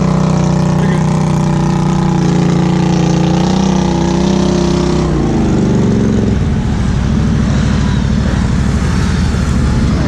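ATV engine running loud at steady high revs, then dropping in pitch about halfway through to a lower, rougher, uneven note.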